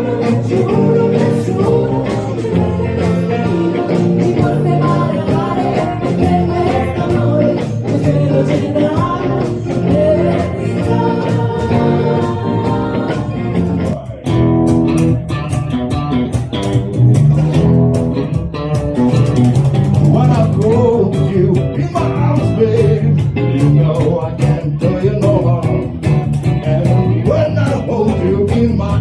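Live band music with guitar and singing, in a 1960s rock style.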